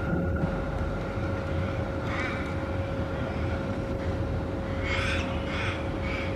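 Steady low urban rumble with a constant machine hum. Over it come harsh bird calls: one at about two seconds in, then a quick series of about four squawks near the end.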